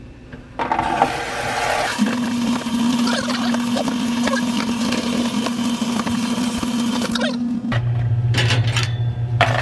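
Tap water running into a sink while dishes are washed, with a steady hum under the rush. It cuts off about eight seconds in, leaving a lower steady hum and a few clicks.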